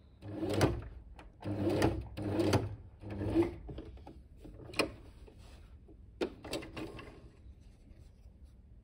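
Domestic electric sewing machine stitching felt in four short bursts, its motor starting and stopping each time. A few sharp clicks follow, then quiet handling of the fabric.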